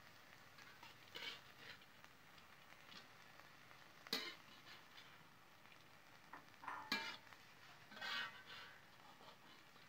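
A metal spatula stirring and scraping a pile of crickets around a wide aluminium wok: scattered scrapes and rattles of the insects against the metal, the sharpest about four and seven seconds in.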